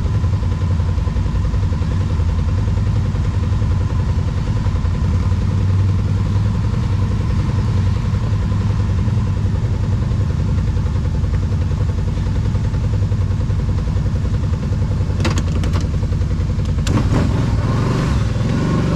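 V-twin ATV engine running steadily at a constant pace, with a few sharp knocks about fifteen and seventeen seconds in.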